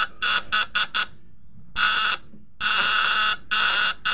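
The vibrating contact breaker (platina) of a homemade battery-powered fish-shocker buzzing in on-off spurts as the supply lead is touched to the coil and taken away: three short bursts, a pause, then longer runs of about a second. The points are set square with the vibrating arm, which keeps them from sticking and the voltage from dropping.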